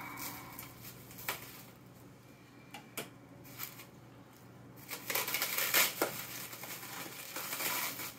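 Green plastic bubble wrap being pulled and torn off by hand: a few scattered crinkles and sharp clicks at first, then steadier rustling and crinkling from about halfway through.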